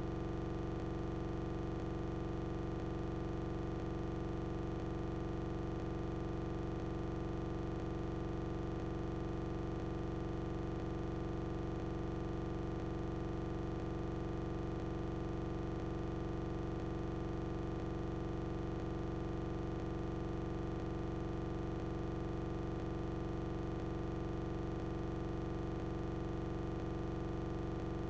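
A steady hum at one pitch over a faint low drone, unchanging throughout.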